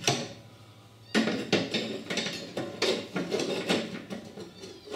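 Irregular metallic clinks and knocks from the cutter deck of a Greenfield ride-on mower as a V-belt is worked into its pulley by hand. There is one knock at the start, then a quiet second, then a run of small clanks and rattles.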